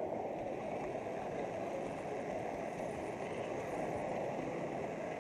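Steady rolling rumble of a model railway wagon's wheels on metal track, heard from the camera riding on the wagon, with the low hubbub of a large hall behind it.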